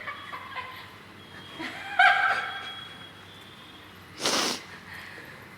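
A man sneezing from sneezing powder: a loud voiced sneeze about two seconds in, then a short, breathy sneeze about four seconds in.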